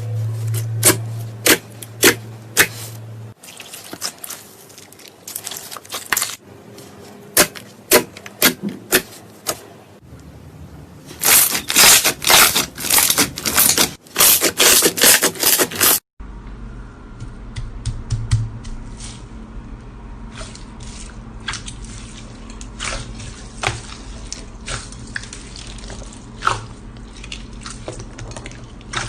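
Slime being squished and poked by hand, making a stream of sharp crackling clicks and pops, loudest and densest just before a cut about sixteen seconds in, and quieter after it.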